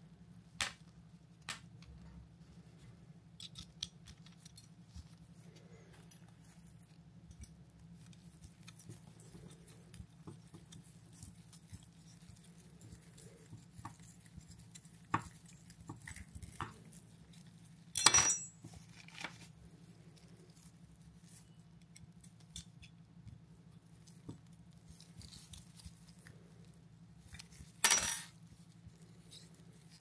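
Light clicks and taps of a SRAM Eagle GX rear derailleur's metal cage and small tools being handled, with two louder metallic clinks in the second half, about ten seconds apart, over a steady low hum.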